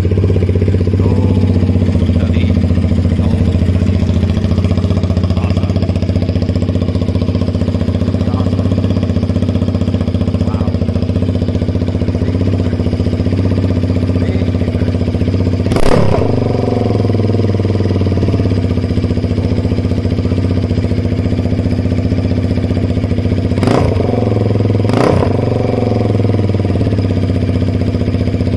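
Honda Rebel motorcycle engine idling steadily through a Regent Cycles Shorty GPX slip-on exhaust. It is blipped briefly once about halfway through and twice in quick succession near the end.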